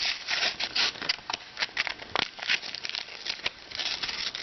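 Plastic packaging crinkling in a run of irregular crackles, with some tearing, as a Pokémon card blister pack is handled and opened.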